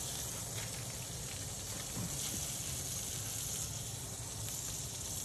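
Steady sizzling hiss from an open charcoal kamado grill as the brisket smokes in its foil boat of juice, with a few faint crackles over a low steady hum.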